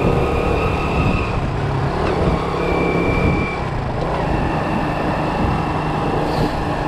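Motorbike running along a city street, with engine noise and wind over the handlebar-mounted microphone making a steady rumble; a thin high tone comes and goes in the first half.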